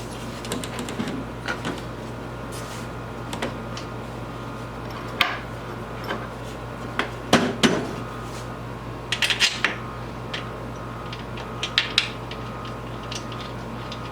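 Metal bolts, washers and nuts clinking and clanking as they are handled and fitted, in scattered knocks with a few louder clusters, while a planer is bolted down to a cart. A steady low hum runs underneath.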